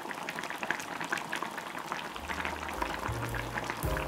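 Pot of gochujang jjigae (Korean chili-paste stew) bubbling on the boil, a dense patter of small pops and crackles. Background music with a low bass line comes in about halfway through.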